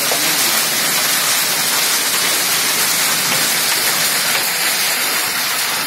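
Heavy rain mixed with hail pouring down in a hailstorm, a loud, dense, steady hiss.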